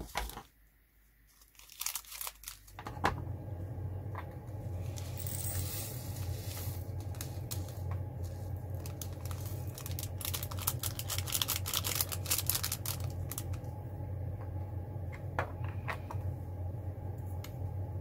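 A plastic zip bag of resin diamond-painting drills crinkling as it is handled, with many small clicks and a patter of rattling as the drills are tipped out, heaviest a few seconds in. A low steady hum comes in about three seconds in.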